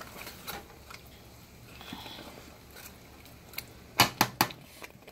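Quiet background with a quick run of about four sharp clicks about four seconds in.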